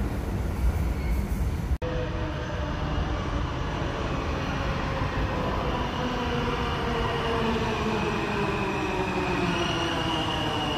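New York City subway train at a station platform, a steady rumble of wheels and motors. Through the second half a stack of motor whine tones slowly falls in pitch as the train slows. The sound drops out for an instant about two seconds in.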